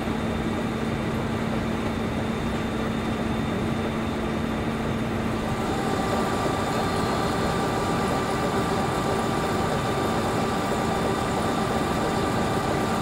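A nearby engine running steadily, a continuous drone with a few constant humming tones whose pitch shifts about six seconds in.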